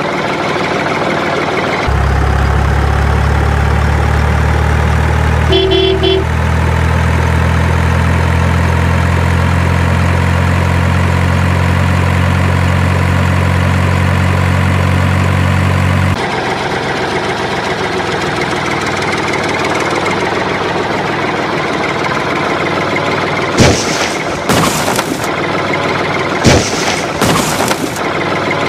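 Engine sound of a big truck laid over the toy play: a steady low idle that starts suddenly about two seconds in and cuts off suddenly about halfway, with a short toot near six seconds. After it comes rougher engine noise, broken by several sharp knocks near the end.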